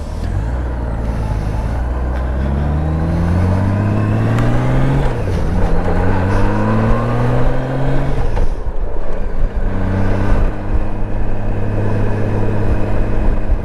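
Honda Gold Wing GL1800's flat-six engine pulling away from a stop, climbing in pitch, dropping at an upshift about five seconds in, climbing again and shifting a second time about three seconds later, then running steadily at cruising speed. Wind and road noise run under it.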